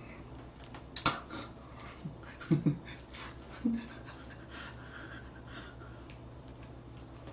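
Clicks and crinkles of a plastic sauce packet being torn open and squeezed, with the tap of chopsticks on the plate; the sharpest click comes about a second in. A couple of short breathy laughs come in the middle, over a steady low hum.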